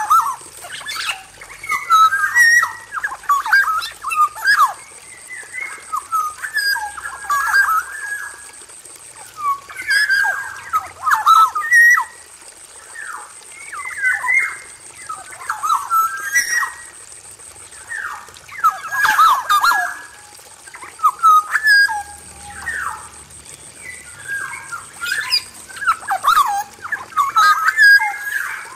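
Male black-naped oriole (kepodang emas) singing in repeated bursts of quick, mostly falling notes, each burst a second or two long and coming every two to three seconds.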